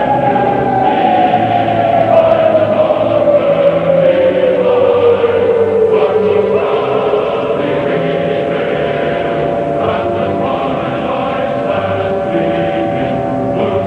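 A civil defense siren winding down, its pitch falling steadily over the first six seconds or so, under choral music with a choir singing sustained chords.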